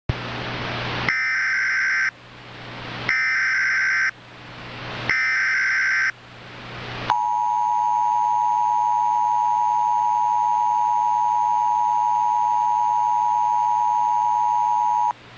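Emergency Alert System broadcast tones. Three one-second bursts of SAME header data, a harsh digital screech, are separated by static hiss. Then comes the EAS two-tone attention signal, a steady dual tone held for about eight seconds that cuts off sharply near the end.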